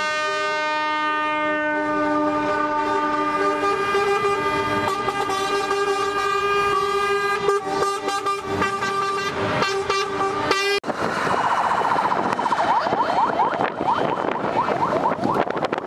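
Truck air horns blowing in long, held, overlapping chords as semi-trucks drive past in a convoy. About eleven seconds in the sound cuts to a truck driving by, its engine under a rushing noise.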